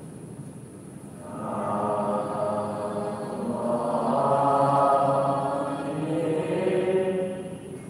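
Slow Buddhist devotional chanting in long, sustained sung phrases, quieter at first and swelling in about a second and a half in.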